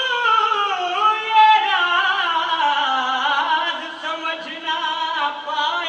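Male voice singing a devotional manqabat through a microphone, in long held notes that bend and waver.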